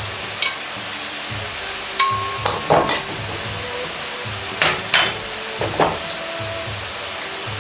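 Garlic slices sizzling in hot olive oil in a wok with the burner off, the garlic flavouring the oil. A metal ladle scrapes and clinks against the wok several times, loudest about two to three seconds in and again near five seconds.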